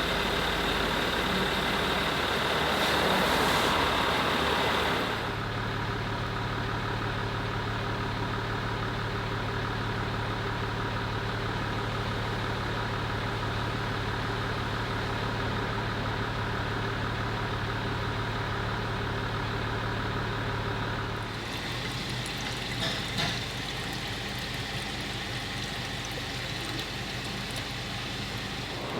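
Chrysler 300C engine running steadily at idle, with an even hum. The tone shifts about five seconds in, when the sound becomes a little quieter, and changes again around twenty-one seconds.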